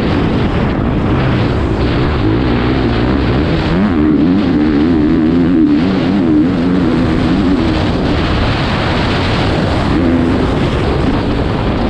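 Motocross bike engine revving up and down as the bike is ridden hard along a dirt track, heard from the rider's helmet camera.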